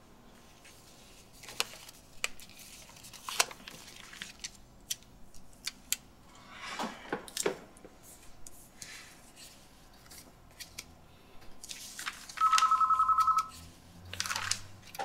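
Paper rustling and crinkling as sheets and envelopes are handled, then near the end an electronic office desk phone ringing once: a fast warbling trill lasting about a second.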